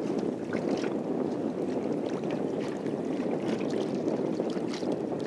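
Steady wind and choppy lake water slapping against a fishing boat's hull, with light scattered ticks over the top.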